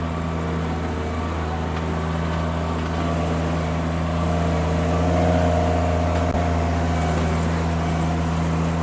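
Mini skid steer engine running steadily under load as the loader reverses with its bucket in float mode, dragging over dirt. A higher tone swells in about five seconds in and fades two seconds later.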